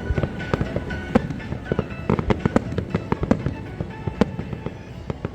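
Aerial fireworks going off in quick, irregular succession, a dense run of sharp bangs and crackles, with music playing underneath.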